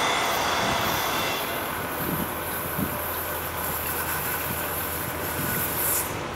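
A train rolling along the track: a steady rumble with a few low knocks about two to three seconds in.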